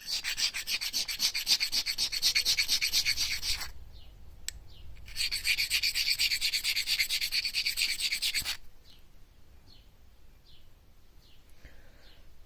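An opal being rubbed by hand against a fine-grit knife-sharpening whetstone, grinding it down into a cabochon shape: rapid, even back-and-forth scraping strokes. They come in two runs of about three and a half seconds each with a short pause between, and stop about two-thirds of the way through.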